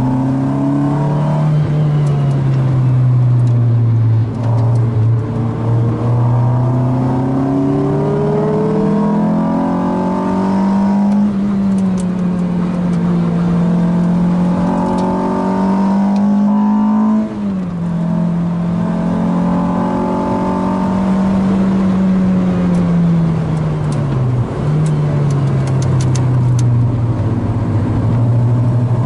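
Car engine running hard around a race circuit, its pitch climbing and falling as it is driven through the gears. The pitch drops suddenly twice, about two-thirds of the way in and again near the end.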